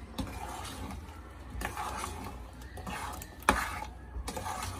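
A spoon stirring thick chickpea curry in a pressure cooker pot, scraping and clinking against the metal. One sharper knock comes about three and a half seconds in.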